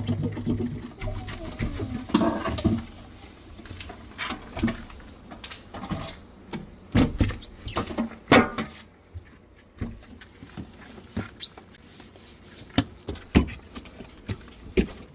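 Irregular knocks, clicks and light clatter of household objects being handled and set down, with some faint voice-like sounds in the first few seconds.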